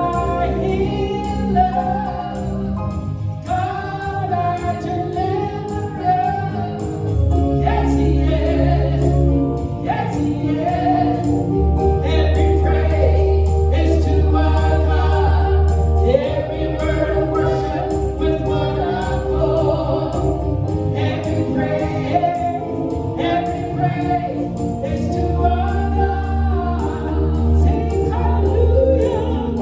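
Gospel music: a choir singing over instrumental accompaniment with sustained bass notes.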